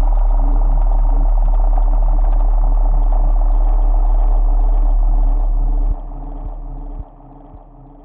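Deep, steady drone with a strong low hum and several held higher tones. It drops sharply in level about six seconds in and again a second later as it fades out.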